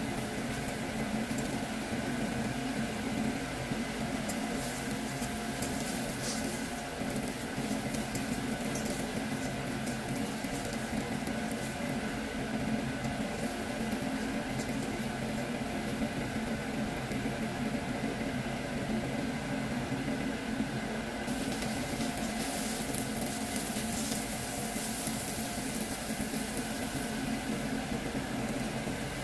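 Rice and fried onions sizzling in hot oil in a frying pan as the rice is poured in and stirred with a spatula, over a steady background hum. The crackle and scraping come in spells in the first few seconds and again in the last several seconds.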